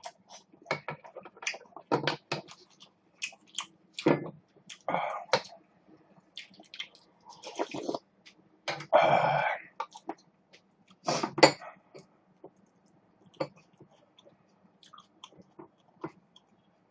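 Close-miked eating of galbitang (beef short rib soup) with rice: chewing, slurping and small clicks of spoon or chopsticks against the bowl, as a string of short separate sounds. A longer, louder mouth or throat sound comes about nine seconds in.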